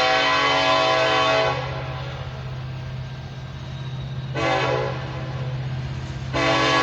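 Norfolk Southern locomotive NS 1196's air horn sounding a chord of several notes for a horn show: a long blast that stops about a second and a half in, a short blast in the middle, then another long blast starting near the end. A steady low rumble runs underneath.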